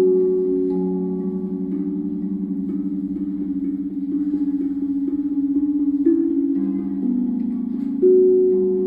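Steel tongue drum struck softly with mallets, slow melodic notes that ring on, overlap and slowly die away. A louder note is struck about six seconds in and another near the end.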